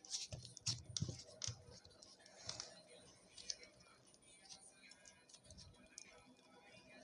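Clay slime being stirred and squished: faint, irregular sticky clicks and crackles, busiest in the first second or two.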